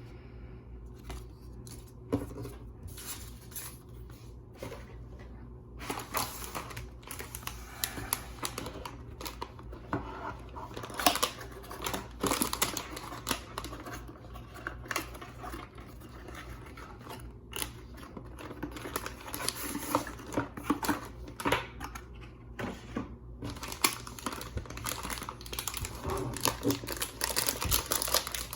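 Crinkling and rustling of packaging with scattered clicks and knocks as a keyboard is unpacked from its box. It is sparse at first and turns busier and steadier from about six seconds in.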